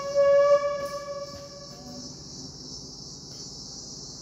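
A single held electronic organ note played through the church sound system, steady and then fading out about two seconds in. Under it runs a constant high chirring of crickets.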